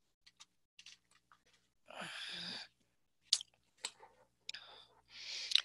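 Scattered small sharp clicks with a couple of soft breaths, picked up close to a computer microphone; no speech.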